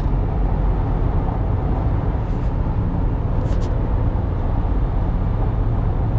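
Steady low background rumble, with two faint short clicks about two and a half and three and a half seconds in.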